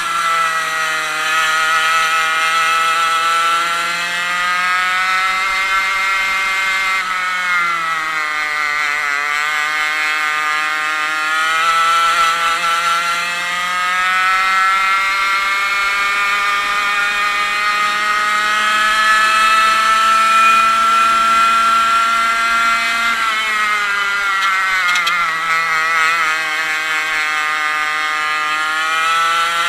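100cc two-stroke racing kart engine at race pace, heard from on board the kart. Its high-pitched note climbs steadily on the straights and drops sharply twice, about eight and twenty-four seconds in, as the revs fall for corners, then climbs again.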